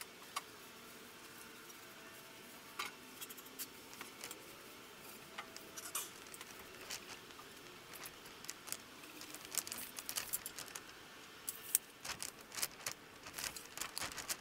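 Light knocks and clicks of wooden 2x4 boards being handled and fitted against a wooden frame, scattered and irregular, getting busier in the second half.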